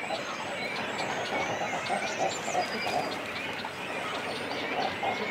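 Cormorant colony close up: adults and chicks on their nests calling over and over in a dense chorus of short calls, with thin high chirps and whistles of smaller birds behind them.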